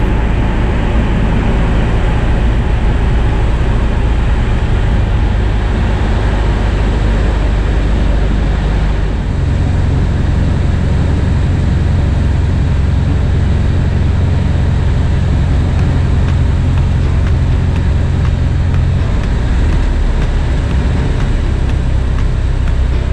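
Bellanca Citabria's single piston engine running, heard inside the cockpit along with the rush of air, on final approach to land. The engine note steps up in pitch about nine seconds in and falls back about ten seconds later.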